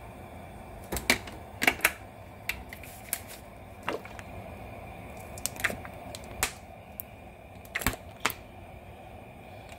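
Hot stainless steel frying pan being preheated and oiled: about a dozen sharp ticks and pops at irregular intervals over a low steady hum.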